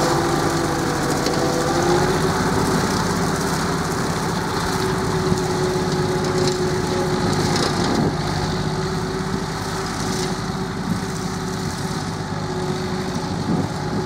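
1967 Massey Ferguson 165 tractor engine running steadily under load, driving a PTO-powered rotary topper that cuts long grass. The drone fades gradually as the tractor moves away.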